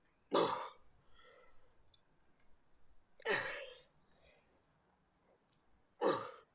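A man's forceful exhalations from effort, three of them about three seconds apart, one with each pull of a single-arm dumbbell row.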